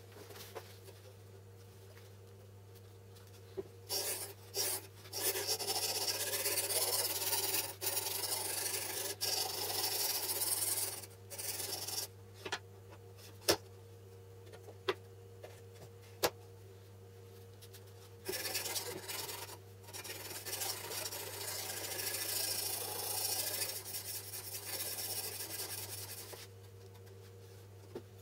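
Sharpening stone on a guided-rod jig stroked repeatedly along a kitchen knife's edge, making a scraping rasp. It comes in two long runs, with a few sharp clicks between them.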